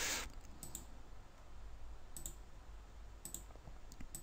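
A few faint computer mouse clicks, spread a second or so apart, over a low steady hum.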